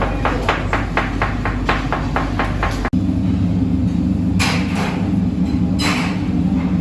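Rapid, even knife chops on a cutting board, about four a second, stopping abruptly about three seconds in. After that a steady low mechanical hum, with two short hissing bursts.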